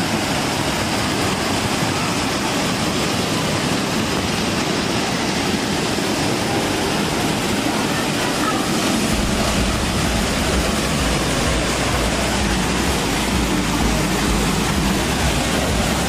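Waterfall rushing steadily, a constant even roar of falling water; a low rumble joins about halfway through.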